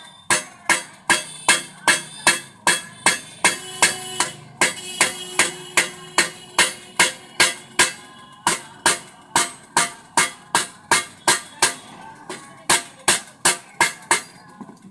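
Hammer striking metal in steady, even blows, about three a second, each with a short ringing tone, as a pressure cooker part is beaten into shape.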